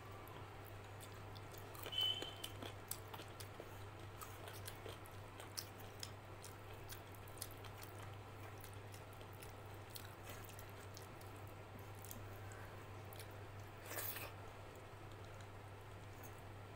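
Close-up eating sounds: chewing, and the wet squish and small clicks of fingers mixing rice with chicken curry on a steel plate. There is a short ringing clink about two seconds in and a brief louder wet noise near the end, over a steady low hum.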